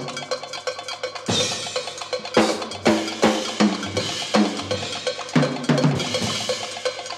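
Jazz percussion playing a steady, quick pattern of struck taps, about three a second. Heavier drum strokes fall in among them, and a cymbal wash comes about a second in and again near the end.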